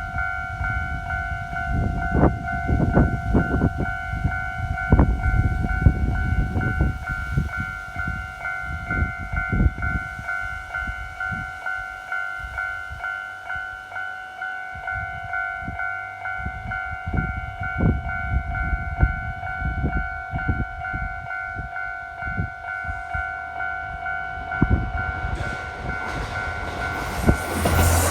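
Japanese level-crossing warning bell ringing on and on in an even, rapid electronic rhythm, over irregular low rumbling knocks. In the last few seconds the approaching KiHa 54 diesel railcar swells in, rising in level.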